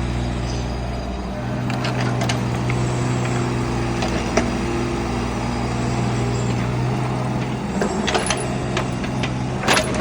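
Mini excavator's diesel engine running steadily, its note shifting about a second in, with a sharp knock midway and several metallic clanks near the end.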